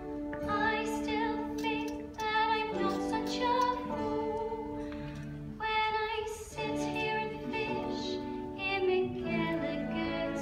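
Live pit band playing the accompaniment of a stage-musical song: a melodic instrumental passage of held notes.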